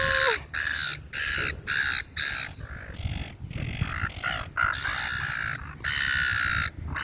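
A flock of gulls squawking: short harsh calls about two a second at first, then more scattered, with one longer call near the end.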